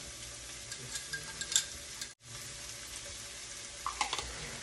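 Sliced onions and green chillies sizzling steadily as they fry in oil in a pan. A few light clinks of a metal spoon against a glass bowl come about a second and a half in and again near four seconds, and the sound drops out for a moment just after two seconds.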